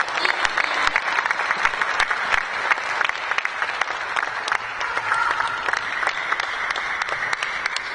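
Arena audience applauding after a point in a table tennis match: dense clapping that thins out near the end.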